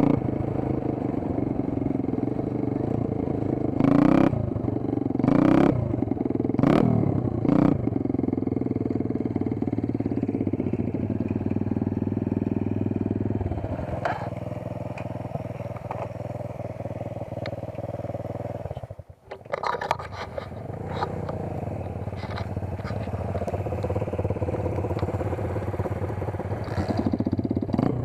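Dirt bike engine running under way, with four quick throttle blips in the first third. The sound dips briefly about two-thirds through, then the engine runs on steadily.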